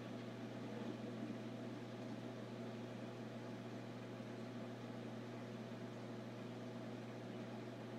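Steady low electric hum with a faint hiss, unchanging throughout: aquarium equipment running.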